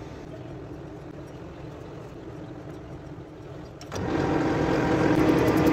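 Metal-turning lathe and workshop machinery humming steadily. The hum is quiet at first and jumps suddenly to a much louder running drone about four seconds in. A fast, even ticking joins it near the end.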